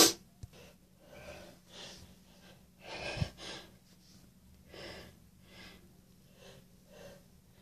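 A congested person sniffing and breathing through a stuffy nose: a run of about ten short, noisy breaths, the loudest pair about three seconds in.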